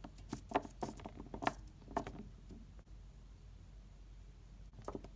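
Light plastic taps and clicks of a Littlest Pet Shop toy figure being moved by hand across a tabletop: a quick run of about six in the first two seconds, then two more near the end.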